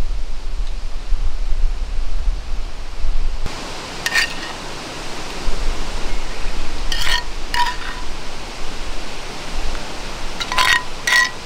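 A metal ladle clinking against a frying pan and ceramic bowls as food is served out: one light clink about four seconds in, two about seven seconds in and two near the end. Steady wind rumble on the microphone runs underneath.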